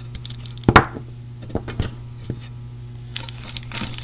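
A small roll of duct tape set down on a wooden workbench with one sharp knock, then a few lighter clicks and taps of small items handled in a metal tin, over a steady low hum.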